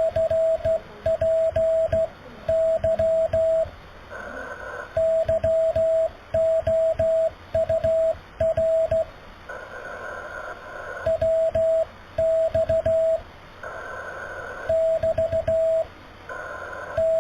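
Morse code over amateur radio: a single steady beep keyed on and off in dots and dashes, sent slowly in groups. A burst of hissy radio noise rises in the pauses between groups.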